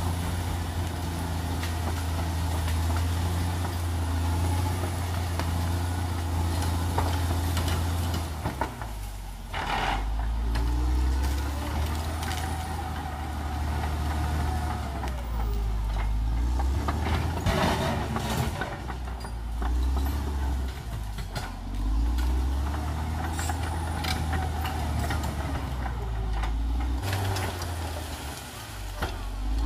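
Caterpillar D6R XL crawler bulldozer working, its diesel engine running with the pitch shifting every few seconds as the load changes. Two louder bursts of clatter, about ten and eighteen seconds in.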